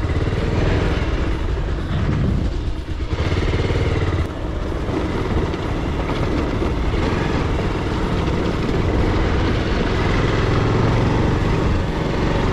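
Steady rumble of a vehicle on the move, with wind rushing over the microphone.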